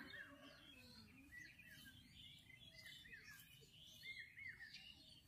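Near silence with faint bird chirps: short, repeated calls coming in small groups.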